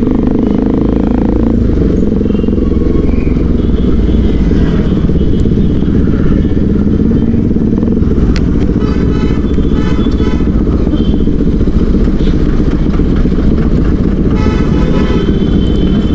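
Motorcycle engine running steadily while riding, with dense road and wind noise.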